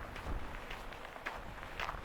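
Footsteps of a person walking at a steady pace, a short scuffing step every third to half second.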